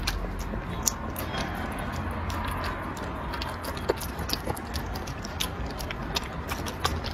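Small dog eating wet, mushy food from a bowl: steady chewing and lapping with many irregular sharp clicks as it eats.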